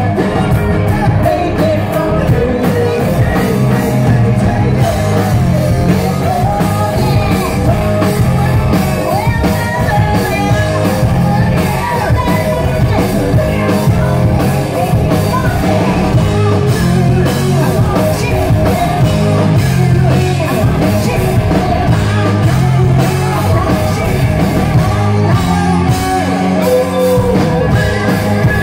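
Live rock band playing loud, with drums, electric guitars and bass under lead vocals.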